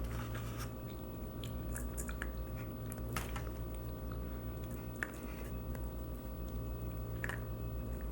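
Close-miked chewing of pani puri: scattered crunches and wet mouth clicks as the crisp, water-filled shells are bitten and chewed.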